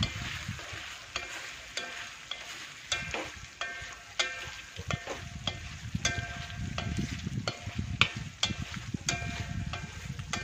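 Wooden chopsticks stirring quail eggs in satay sauce in a metal wok, knocking against the pan with repeated short ringing clicks, over the sizzle of the sauce frying.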